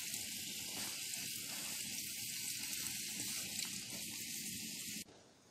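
Bacon sizzling and frying in a skillet on a small titanium wood stove: a steady, crackling hiss that stops abruptly near the end.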